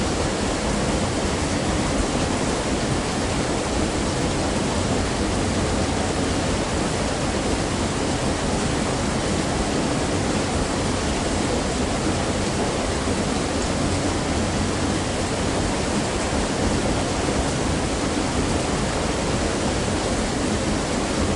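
Mill machinery at the front axle: a steady, even rushing noise with a faint low hum underneath, unchanging throughout.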